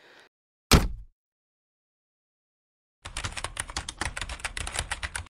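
A single short thump about a second in, then a typing sound effect: a rapid run of typewriter-style key clicks lasting about two seconds, as the title text types itself out letter by letter.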